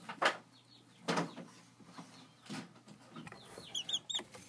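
Young chickens in a brooder peeping: a quick run of short, high, arched peeps in the last second or so. Earlier, a couple of loud bumps from handling, the loudest sounds here.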